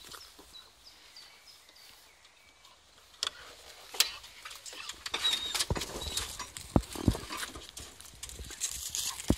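A car door latch clicks open, then a dog clambers out of the front seat and drops onto gravel, with scattered knocks, scuffs and footfalls.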